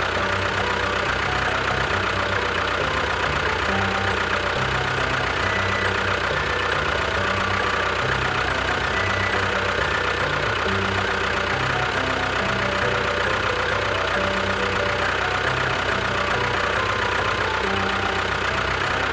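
Vehicle engine running steadily at idle, with a knocking chug.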